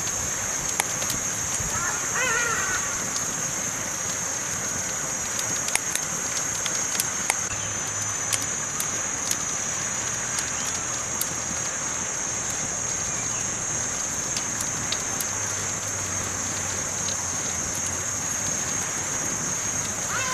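Campfire crackling with scattered sharp pops over a steady high hiss. A crow caws once about two seconds in.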